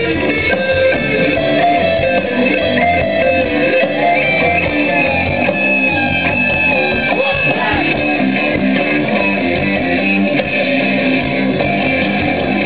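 Guitar-driven music playing steadily at an even, loud level.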